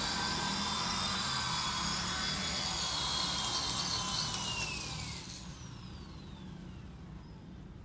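WLtoys V912 RC helicopter's electric motor and rotor running with a steady high whine, then falling in pitch as it spins down about three to five seconds in, leaving a faint fading whine.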